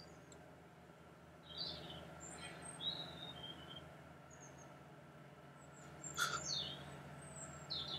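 Small birds chirping: short, high calls scattered through, over a faint steady low hum, with one sharp click about six seconds in.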